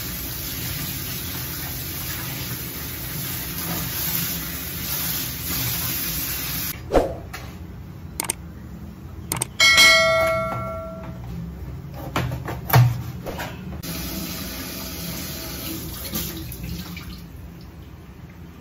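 Tap water running into a stainless steel sink as a fish is rinsed under it by hand, with a few sharp knocks. About ten seconds in, a short ringing bell chime sounds: a subscribe-button sound effect.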